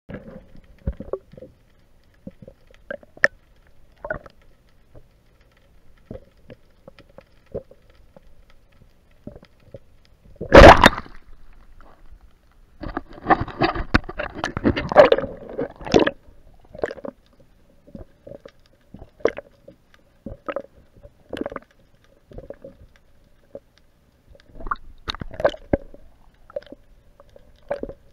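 Sound picked up by an underwater camera under a kayak's hull: scattered knocks and clicks with water noise, one loud sudden burst about ten and a half seconds in, and a dense stretch of noise from about thirteen to sixteen seconds.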